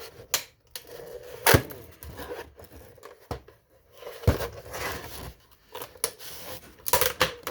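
Screwdriver prying and scraping at a clip-fastened plastic router case, with several sharp plastic snaps and cracks as it is forced apart.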